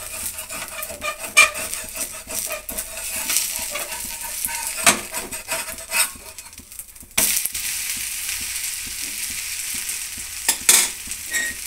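A spatula scraping and tapping on a dosa tawa as an onion dosa is loosened and turned over. About seven seconds in, a sizzle starts suddenly as the oiled, onion-topped side goes face down onto the hot pan, and it keeps frying.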